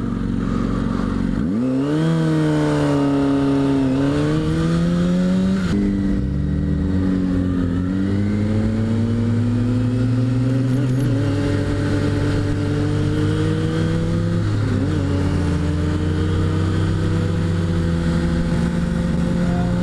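Inline-four 600cc-class sport motorcycle engine pulling away about a second and a half in, its pitch climbing and dropping back at upshifts near 4 and 6 seconds, then a long, slowly rising pull at steady throttle. Wind rush on the rider's microphone runs underneath.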